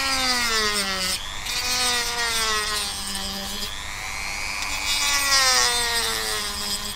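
Dremel rotary tool with a cut-off wheel cutting into the plastic case of a USB charger along its seam. The motor whine wavers in pitch, dropping as the wheel bites in and picking up again, and stops at the end.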